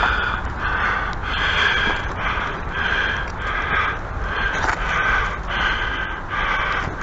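A man breathing heavily near the microphone, short in-and-out breaths at about one and a half to two a second, panting from physical effort.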